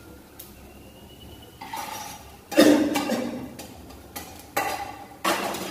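Spatula knocking and scraping against a wok while stirring frying onions and vegetables: a few separate clanks with a brief ring, the loudest about halfway through.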